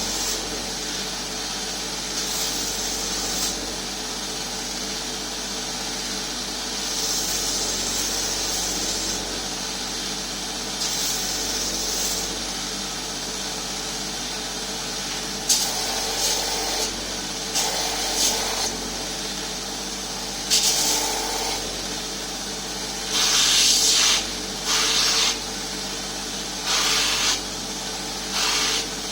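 Power grinder running steadily while a small handle blank is rough-ground freehand, with several short bursts of louder hissing grind in the second half as the blank is pressed against the abrasive.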